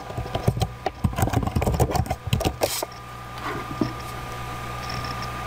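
Computer keyboard keys clicking in a rapid run as a password is typed, for about three seconds; after that only a steady low hum remains.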